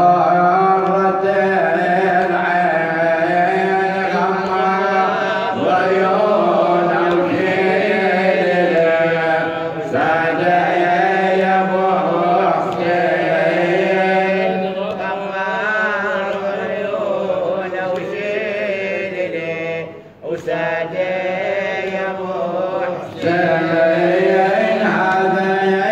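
A man chanting an Arabic Shia lament (nawha) solo into a microphone, one long line of drawn-out, wavering held notes, with a brief pause for breath about twenty seconds in.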